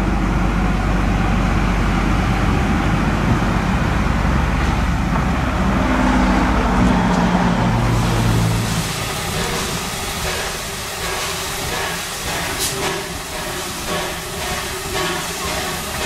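Diesel engine of a Queensland Rail 2000 Class railmotor running as the railcar pulls away: a loud, low rumble whose pitch shifts about six seconds in, then cuts off at about eight and a half seconds. After that, a Robey stationary steam engine runs with a quieter, regular ticking beat.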